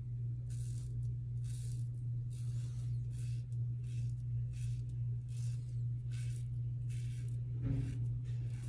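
KARVE double-edge safety razor with a Gillette Super Thin blade scraping through lathered stubble in short strokes, about two a second, over a steady low hum.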